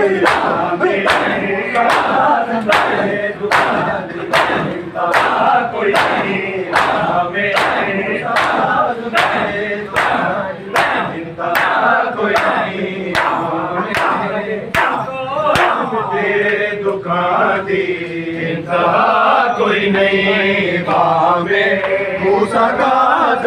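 A crowd of men doing matam, beating their chests in unison at about one and a half strikes a second while their voices chant together. The beating stops about 16 seconds in and the chanting carries on.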